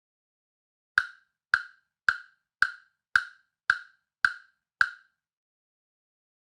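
Orange LP-1204 Jam Block, a plastic wood-block-style percussion block, struck eight times at an even pace, each a sharp dry knock that dies away quickly.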